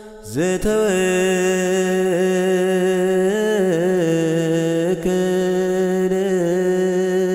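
A single voice chanting a slow, melismatic Orthodox Tewahdo hymn to the Virgin Mary, holding long notes that bend and waver in pitch, entering with an upward swoop just after the start.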